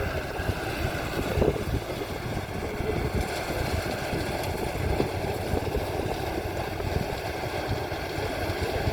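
Maxxi Bimo 102 rice combine harvester running steadily, its engine and machinery making a continuous mechanical drone.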